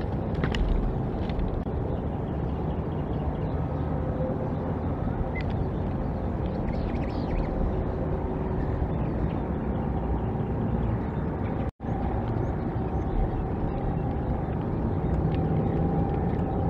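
Steady low outdoor rumble with a faint steady hum running through it. The sound cuts out for an instant about twelve seconds in.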